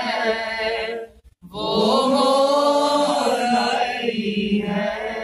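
Unaccompanied male chanting of an Urdu devotional qasida (manqabat), drawn out in long held, wavering notes, with a short breath-pause about a second in.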